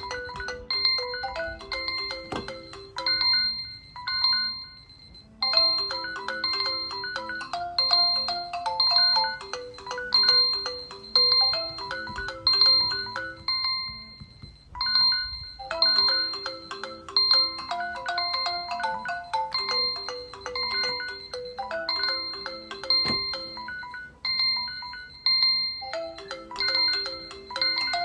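Mobile phone alarm clock ringtone: a short electronic melody that loops about every ten seconds, with a brief pause between repeats.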